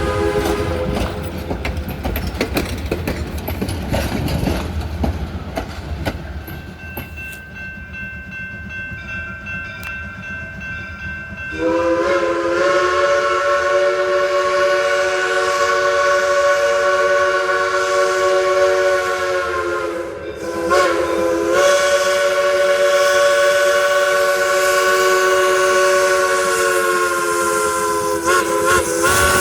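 Steam locomotive Polson Logging Co. No. 70 sounding its whistle, a chord of several notes. A short blast at the start gives way to about ten seconds of the train's running noise with clicks from the rails. Then a long whistle blast begins about twelve seconds in, broken briefly twice before the end.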